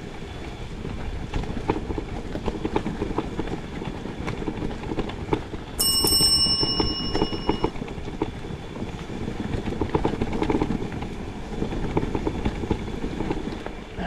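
Mountain bike rolling over a trail: a steady rumble from tyres and frame with many small rattling knocks. About six seconds in, a bell rings once and fades over about two seconds.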